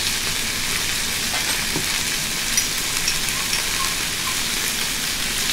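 Chicken, sugar peas and red bell pepper frying in oil in a stainless steel wok, a steady sizzle.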